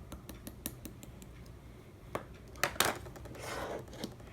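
A series of light clicks and taps, several louder ones near the middle, followed by a short scraping rustle and a last click near the end.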